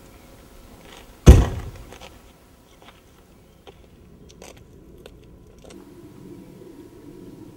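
A car door slams shut once, about a second in, a single heavy thump. Faint small clicks follow, and a low steady hum comes in near the end.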